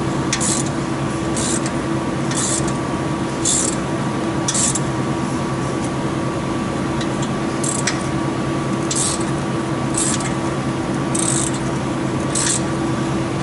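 Hand ratchet wrench tightening a bolt, its pawl clicking in a short burst on each return stroke, about once a second, with a pause of about three seconds midway. A steady hum runs underneath.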